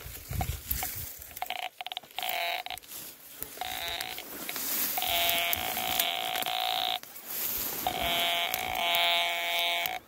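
Metal detector sounding its buzzy, steady-pitched target tone five times as the search coil sweeps over buried metal: a short blip, two brief tones, then two long ones of about two seconds each near the end.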